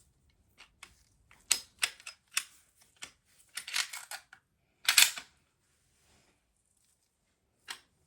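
Metal clicks and scrapes of a Smith & Wesson 745 pistol's slide and frame being worked together by hand: a string of sharp clicks, a rasping cluster about four seconds in, and the loudest sliding rasp around five seconds, then a pause and a single click near the end.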